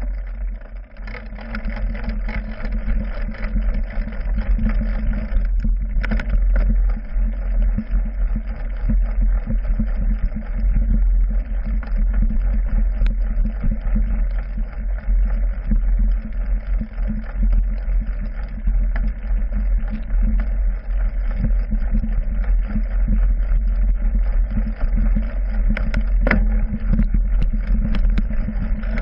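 A mountain bike rolling over a rough dirt trail, heard through a GoPro Hero 3 on its handlebar: a steady deep rumble with dense, rapid rattling and knocking from the bumps.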